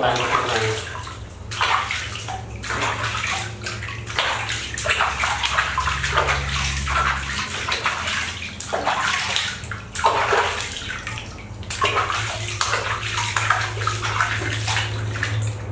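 Water splashing and sloshing in a plastic washbasin as a baby monkey is held in it and washed by hand, in irregular splashes one after another.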